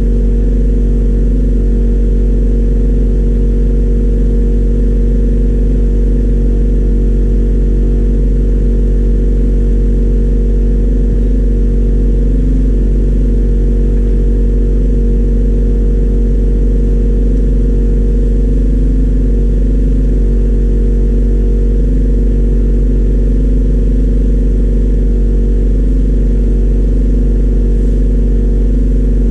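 Workshop machinery running steadily: a loud, unchanging motor drone with a deep hum and several steady tones above it.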